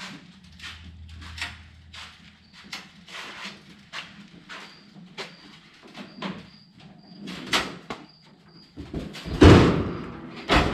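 Electric range on a hand truck being wheeled over a concrete floor: its sheet-metal body and the hand truck clunking and rattling in quick irregular knocks, then a heavy thud near the end as the range is set down.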